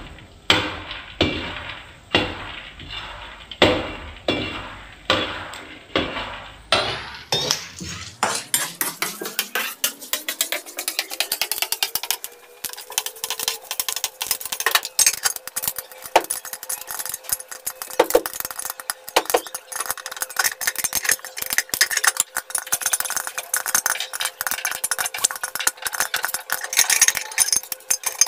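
Metal slotted spoon stirring and scraping popcorn kernels around an aluminium kadhai, about two strokes a second. After several seconds the kernels start popping, a dense crackle of sharp pops that goes on together with the scraping of the spoon.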